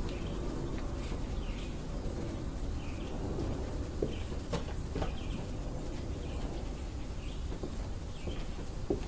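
Bird calls repeating about once a second as short high chirps, with a few sharp knocks from a horse's hooves on the barn floor, the loudest about four seconds in and near the end.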